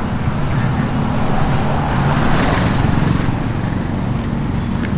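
Road traffic: a vehicle passes, its noise swelling and fading around the middle, over a steady low engine hum.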